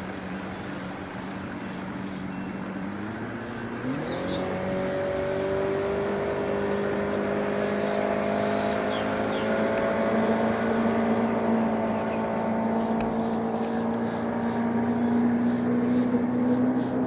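Bass boat's outboard motor running low, then throttled hard for a fast take-off about four seconds in: the pitch climbs quickly, and the motor keeps pulling and slowly rising, growing louder as the boat gets up on plane.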